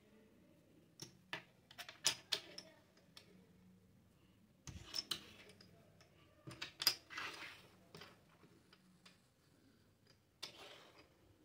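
Small plastic toy forks clicking and clattering as they are set down on a tabletop, in scattered clusters of light taps with pauses between.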